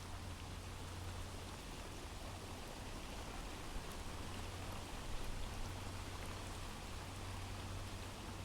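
Steady light rain ambience from a recorded rain sound effect, an even hiss of falling rain, with a few faint clicks about four to five seconds in.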